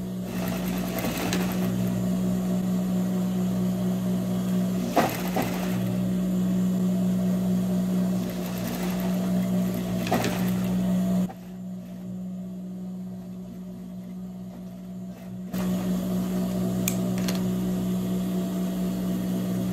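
Industrial straight-stitch sewing machine running and stitching through denim, with a steady motor hum and a few light clicks. It goes quieter for about four seconds partway through, then runs again.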